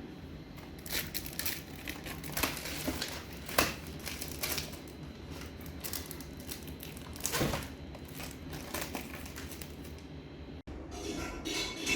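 Crinkling, crackling sound effect with irregular sharp clicks over a steady low rumble, played back through a 5.1 soundbar and subwoofer. Near the end it cuts out for an instant and a different clip begins.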